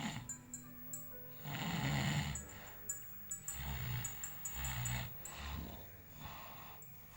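A sleeping person snoring: several snores with a low buzz, the loudest about a second and a half in and a few weaker ones after.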